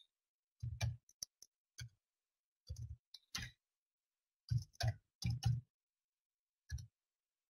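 Computer keyboard being typed on: separate keystrokes, each a quiet click with a low thud, coming singly and in short irregular clusters with pauses between them.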